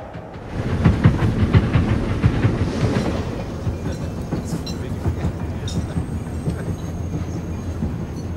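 Passenger train running along the rails, its wheels clattering rhythmically over the rail joints under a steady rumble. It is loudest in the first few seconds, then settles to a steadier, quieter running sound.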